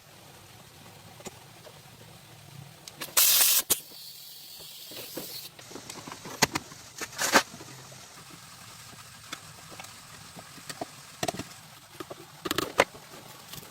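A loud hissing spray burst lasting about half a second, followed by a fainter high hiss for about two seconds, with scattered sharp clicks and taps of work on metal parts.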